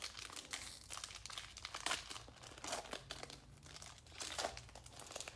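Foil wrapper of a Panini Prizm football card pack crinkling as it is torn open and peeled back by hand, with irregular crackles throughout.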